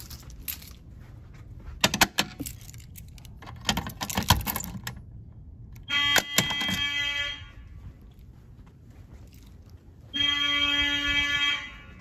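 A ring of keys jangles and clatters at a Simplex fire alarm pull station. Then a fire alarm horn sounds two short blasts, each about a second and a half long and about four seconds apart.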